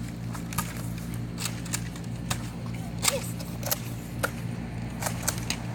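Scattered sharp clicks and taps at irregular intervals over a steady low hum.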